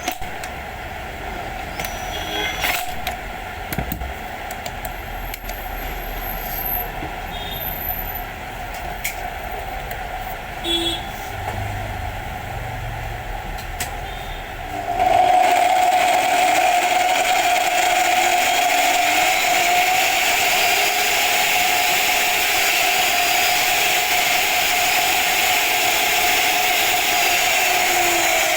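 Hikoki CC14STD cut-off saw with scattered clicks and knocks, then switched on about halfway through: its motor and disc run at a steady, loud whir with a strong single tone, likely a test run after the repair.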